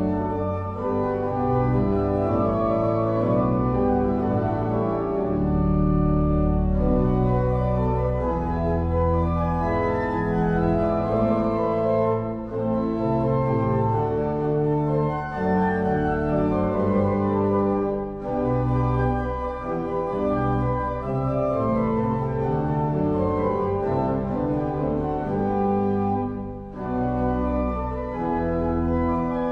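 Church organ playing a piece with held chords over a deep bass, the chords changing about every second, with brief breaks between phrases.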